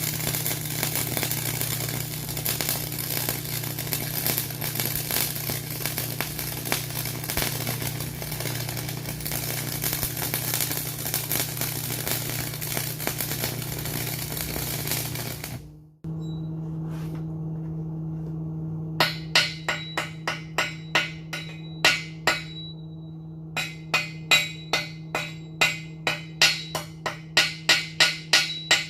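Arc welding on steel: a steady electric crackle over the welder's low hum for about sixteen seconds. The arc then cuts off suddenly while the hum goes on. A few seconds later come rapid sharp taps, about three a second, with a short pause partway through.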